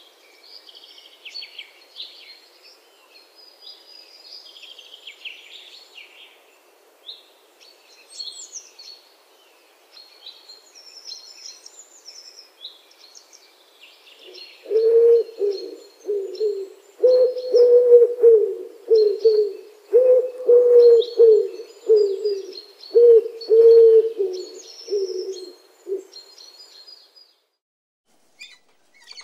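Pigeons cooing: a loud run of repeated low coos begins about halfway through and stops a few seconds before the end. Small birds chirp at a high pitch throughout.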